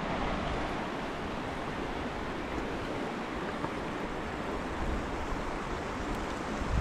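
Shallow, rocky river running over stones at a ford: a steady, even rush of flowing water.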